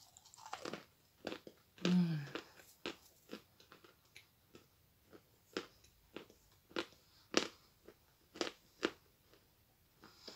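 A large chunk of Stary Oskol natural chalk being bitten and chewed, giving about a dozen sharp, irregularly spaced crunches. About two seconds in, a short hum from the eater's voice falls in pitch.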